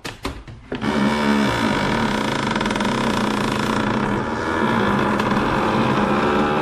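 Wooden floorboard creaking: a few short clicks, then, about a second in, one long, loud creak held on a steady, slightly wavering pitch.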